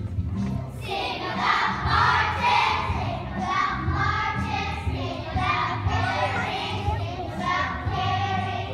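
Choir of young children singing in unison over instrumental accompaniment, the voices coming in about a second in and carrying on in short phrases.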